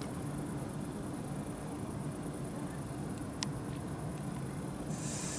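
Insects chirring steadily in a high register over a steady low hum. There is one sharp click about three and a half seconds in and a short hiss near the end.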